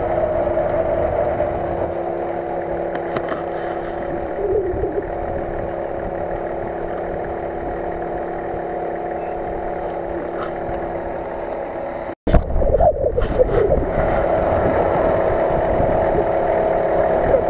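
Nissan Patrol's engine running at low, steady revs as the 4x4 crawls through mud and reeds. The sound cuts out abruptly for a moment about twelve seconds in, then comes back slightly louder.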